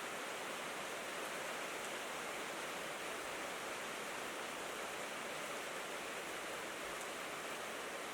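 Steady rain falling on a tin roof, an even hiss with no single drops standing out.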